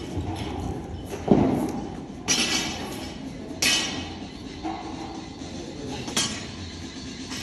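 Sharp metallic clanks and knocks of gym equipment, several in a row, each ringing briefly; the loudest and heaviest comes about a second in.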